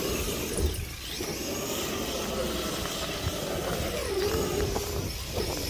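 Traxxas X-Maxx RC monster truck's brushless electric motor running as the truck drives through snow, its tyres throwing up spray, over a constant low rumble.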